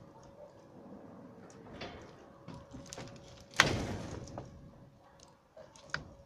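Roofing boards and sheets being shifted on a canopy roof: scattered knocks and scrapes, then one loud clatter about three and a half seconds in that trails off over a second, and a sharp knock near the end.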